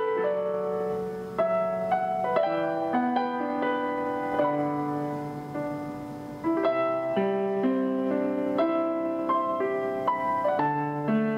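Gentle background piano music, single notes and chords struck one after another, each fading away.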